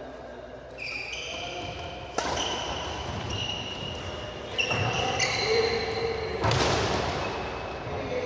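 Sports shoes squeaking on an indoor court floor during a badminton doubles rally, many short squeaks, with three loud sharp racket hits on the shuttlecock about two seconds apart.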